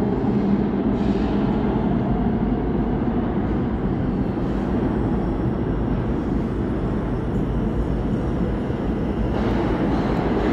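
Steady low rumble of subway trains echoing in an underground station, even throughout with no single event standing out.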